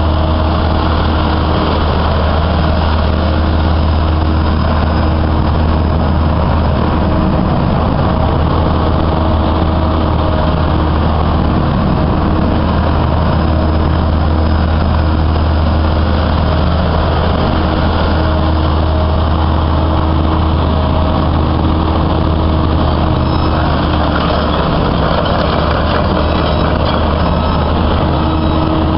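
A 2004 Kobelco SK135SR excavator's diesel engine running steadily while the hydraulics swing the upper structure and work the boom and bucket. A faint whine comes and goes over the engine.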